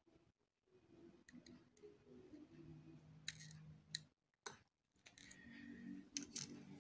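Near silence with a few faint, scattered clicks of a plastic pry tool working at a smartphone's flex-cable connectors, the sharpest about four seconds in.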